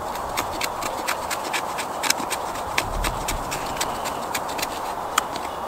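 Spine of a knife scraped up a stick of fatwood again and again, a quick run of short dry scraping strokes, several a second, as resinous shavings come off into a pile for a ferro rod spark.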